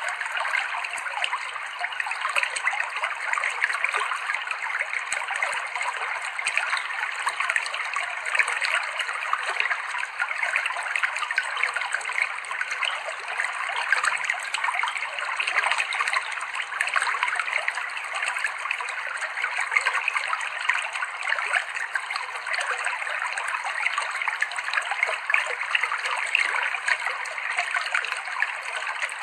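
Clear, cold river water flowing and babbling over rocks: a steady, even rush full of small splashes and trickles, unchanging throughout.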